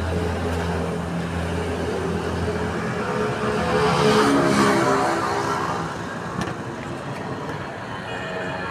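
Road traffic: a motor vehicle's engine runs steadily under general street noise, growing louder for a second or two about four seconds in as a vehicle passes.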